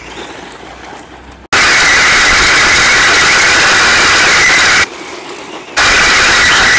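Modified HSP Brontosaurus RC car driving flat out on gravel, heard from its onboard camera: a loud, steady high whine from the drivetrain over the rush of gravel. It starts on a quieter, fainter rush, jumps abruptly to the loud whine about a second and a half in, and drops back to the quieter rush for about a second near the five-second mark.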